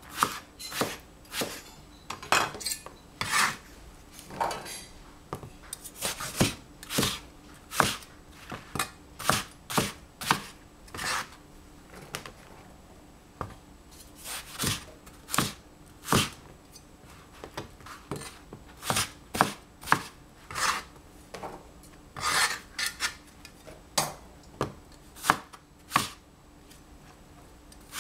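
Large cleaver cutting eggplant on a plastic cutting board: sharp, irregular knocks of the blade striking the board, in quick runs with short pauses between them.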